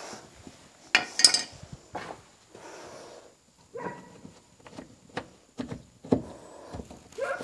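Metal hand tools clinking against each other on the truck floor, the loudest clinks about a second in, with the carpet rubbing under hands. A dog gives short yelps about four seconds in and again near the end.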